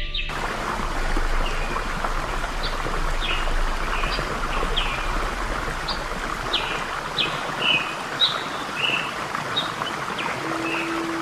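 A stream rushing steadily, with birds chirping over it in short, quick, descending chirps about once a second. A low steady musical tone comes in near the end.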